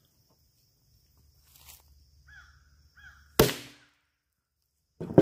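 A single loud, sharp bang as a small pile of silver chlorite mixed with sulfur detonates under a hammer blow, about three and a half seconds in; the mixture is sensitive to percussion. Another sharp sound follows near the end.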